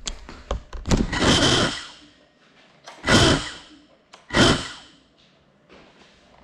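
Small FPV drone knocking against things a few times, then its motors and propellers spinning up in three short bursts, the first a little under a second long and the next two about half a second each.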